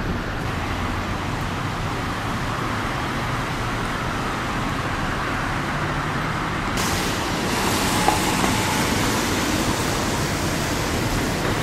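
Steady street traffic noise: a continuous rush of passing vehicles. About seven seconds in, the background turns brighter and hissier.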